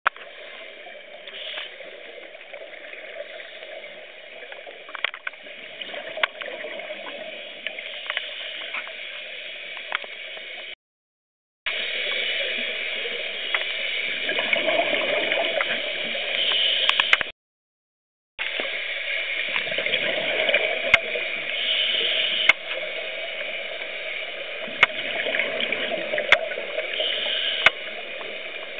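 Scuba divers' exhaled bubbles rushing and gurgling out of their regulators in surges every few seconds, heard underwater through the camera housing, with scattered small clicks. The sound cuts out completely twice for about a second.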